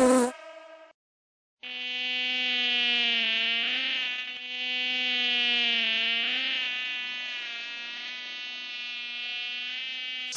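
A mosquito's buzzing whine, used as a film sound effect. It starts after a brief gap and holds a steady pitch, dipping slightly twice, then stops with a short sharp click at the very end.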